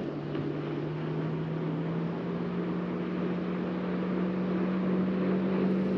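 A boat motor running with a steady low hum that rises slightly in pitch and grows a little louder.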